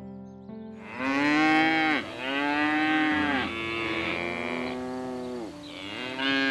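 A cow mooing: four long moos, the first starting about a second in, each call rising and then falling in pitch. Soft piano music plays underneath.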